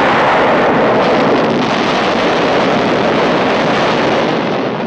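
Explosion sound effect from an animated film soundtrack: a loud, steady rush of noise after the blast, weakening slightly near the end.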